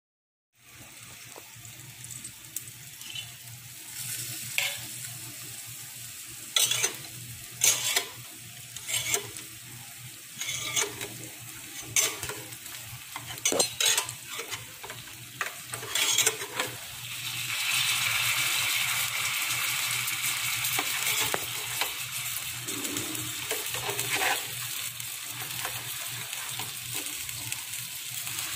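Whole fish frying in oil in a hinged double-sided pan, with a steady sizzle. Through the first half come a dozen or so sharp clinks and knocks on the pan. About 17 seconds in the sizzle swells louder for a few seconds, then settles.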